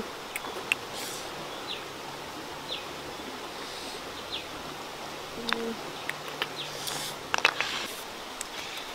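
Outdoor ambience: a steady hiss of running water, with a short falling chirp repeating about once a second. Scattered sharp clicks sound over it, loudest in a quick cluster about seven and a half seconds in.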